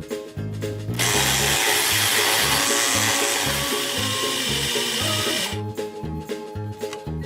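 A small battery-powered toy kitchen appliance motor whirring steadily for about four and a half seconds, starting and stopping abruptly, over children's background music.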